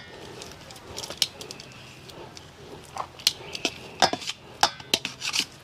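Metal kitchen tongs clicking and scraping against a stainless steel bowl as they turn pieces of raw barracuda, with irregular sharp clicks scattered through.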